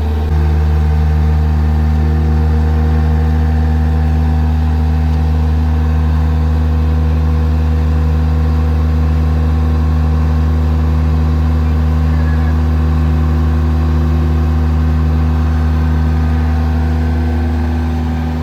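A steady, low drone of a running engine or motor. It steps up slightly just after the start and eases off a little near the end.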